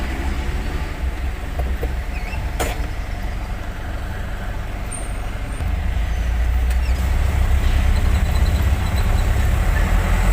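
Heavy truck engine running with a deep, steady rumble that grows louder from about halfway through, with a single sharp click about two and a half seconds in.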